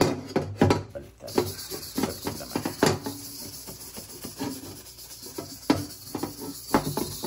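A new cast iron wok being scrubbed by hand with soapy water in a steel sink: scratchy wet rubbing with several sharp knocks of the pan, while it is washed before seasoning. A steady hiss comes in about a second in.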